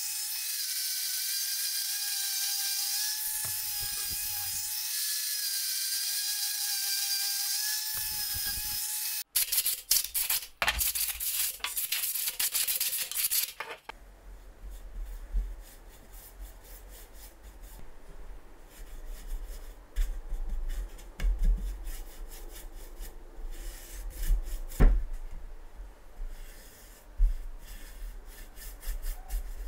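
An angle grinder with a sanding disc runs with a steady high whine as it sands a wooden tripod leg, and cuts off abruptly about nine seconds in. A few seconds of loud scratchy rubbing follow. Then a bristle brush strokes finish onto the bare wooden legs with soft rubbing and a few knocks.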